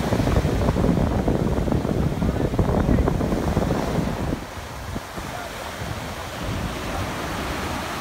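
Atlantic surf breaking and washing up the shore, with wind buffeting the microphone. The heavy wind rumble drops away suddenly about halfway through, leaving the softer hiss of the surf.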